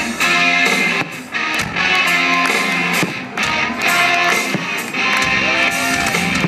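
Rock music with guitar playing loudly as the soundtrack of a fireworks show.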